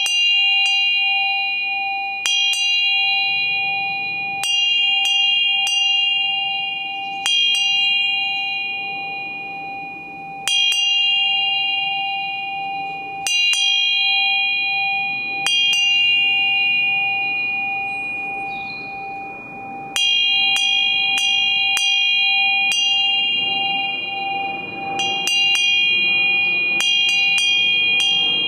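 A small high-pitched bell struck over and over at uneven intervals, each strike ringing on with the same cluster of bright tones, pausing for a few seconds midway. Beneath it a lower ringing tone holds steady and wavers throughout.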